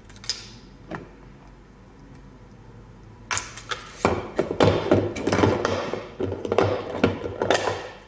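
Clear plastic food storage containers and their snap-on lids being handled, with a couple of light clicks near the start and then, from about three seconds in, a busy run of plastic knocks and rattles.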